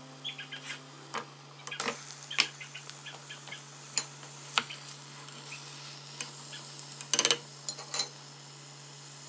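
Ground beef and pork sizzling as it goes into a steel stockpot of sautéing carrots and celery, the hiss thickening about two seconds in. A utensil clicks and scrapes against the pot throughout, with a quick rattle of clicks near the end.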